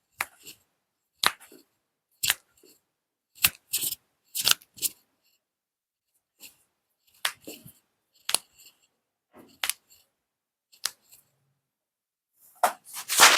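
A series of sharp, short clicks or taps, roughly one a second at irregular spacing, with a denser and louder run of them near the end.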